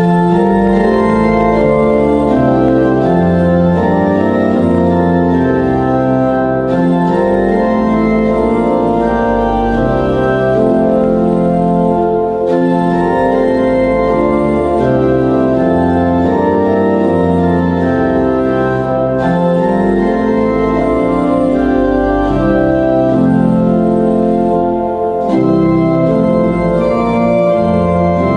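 Organ music: slow, sustained chords that change every second or so, starting abruptly and running on steadily.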